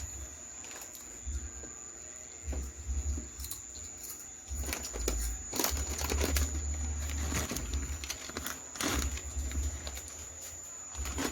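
Close-miked chewing of a sub sandwich loaded with crunchy Takis chips: irregular crisp crunches, thickest in the middle, over a faint steady high whine.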